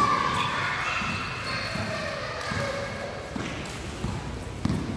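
A basketball bouncing a few times on an indoor court floor, with short squeaks of sneakers on the court.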